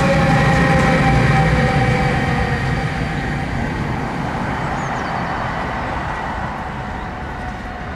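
Electric locomotive-hauled double-deck passenger train running along the track and away, a rumble with a few steady tones that fades evenly as it draws off.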